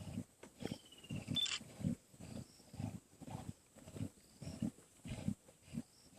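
Lions growling repeatedly in short, irregular bursts as they feed on an impala kill, guarding and squabbling over the carcass.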